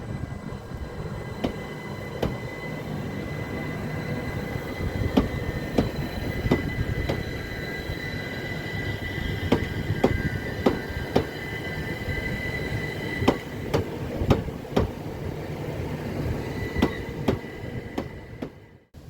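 A train moving slowly on the rails, its wheels squealing in a steady high whine and clacking irregularly over rail joints, over a low rumble.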